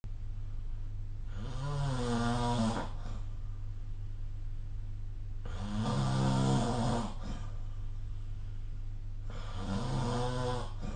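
A sleeping person snoring: three long, rough, pitched snores about four seconds apart, over a steady low hum.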